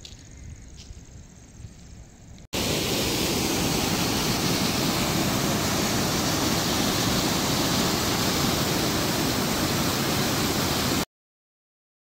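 Small seasonal waterfall in heavy flow after rain, muddy water pouring over a rock ledge: a loud, steady rush of falling water that starts suddenly about two and a half seconds in and cuts off about a second before the end. Before it, only a quiet low outdoor rumble.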